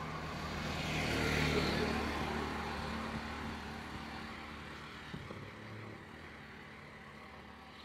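A motor vehicle passing by, its engine and tyre noise swelling to a peak about a second in and then fading away over the next few seconds.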